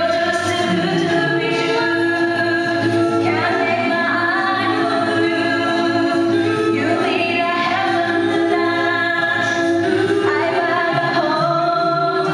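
A vocal ensemble singing in harmony, with women's voices to the fore. It moves through long held chords that change every second or two.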